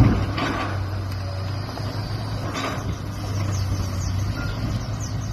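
Demolition bulldozer's diesel engine running with a steady low drone, with a few short crashes or scrapes of debris at the start and again about two and a half seconds in.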